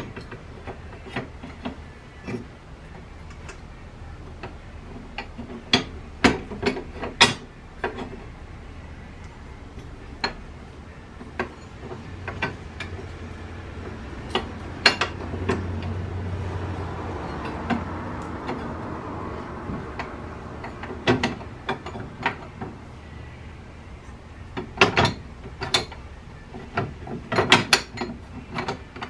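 Steel plates of a belt-grinder frame kit being fitted together by hand on a metal welding table: scattered metal clinks and knocks as the pieces slot into place, with clusters of quick clicks near the end. A low hum swells and fades about halfway through.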